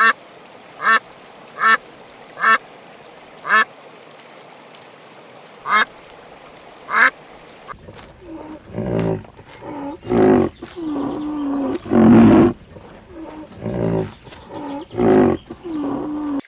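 Ducks quacking. For the first seven seconds a single duck gives short, high quacks about once a second. From about eight seconds in, louder, lower quacks from several ducks overlap.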